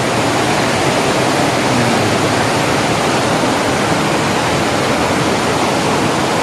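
Loud, steady rush of river water.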